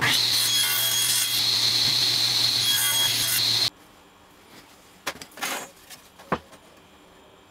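Table saw running and cutting wood on a 45-degree jig: a steady motor hum under a loud, high blade whine. It stops abruptly after about three and a half seconds, followed by a few light rubs and knocks of wood pieces being handled, with one sharper knock near the end.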